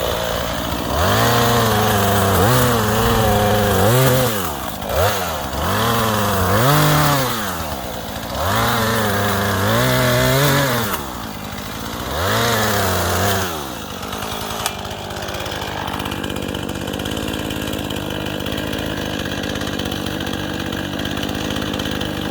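Small two-stroke chainsaw revved up four times in long bursts, its pitch rising and sagging as it cuts through limbs. It then drops back to a steady idle about fourteen seconds in.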